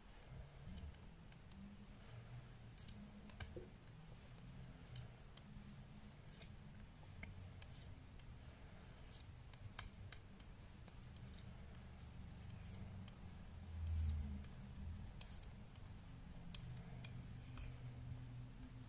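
Metal-tipped knitting needles clicking and tapping faintly as knit stitches are worked one after another, over a low steady hum, with a soft low thump about three quarters of the way through.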